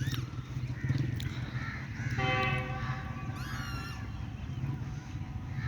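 Birds calling, with crows cawing and smaller birds chirping, and a high twittering about three and a half seconds in. A steady low rumble runs underneath.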